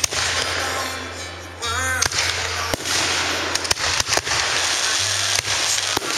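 Aerial fireworks bursting in a rapid, irregular series of sharp bangs over a steady crackling, hissing wash of noise.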